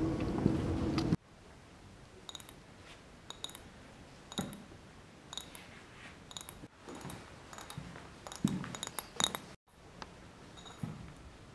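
A loud steady hum cuts off suddenly about a second in. It is followed by quiet room tone with scattered light clicks, taps and small clinks, a few with a brief high ring.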